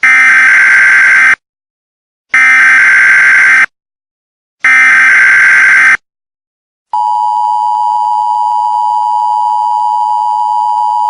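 Emergency Alert System SAME header: three identical bursts of harsh data screech, each about a second long, with a second of silence between them. About seven seconds in, the steady two-tone EAS attention signal starts, a loud unwavering dual tone that announces an alert.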